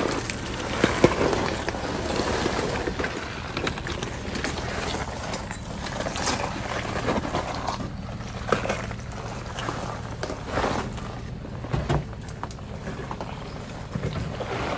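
Toyota 4Runner crawling slowly over a rocky off-road trail: the engine runs low and steady while tyres and running gear give irregular knocks, clicks and crunches on the rock.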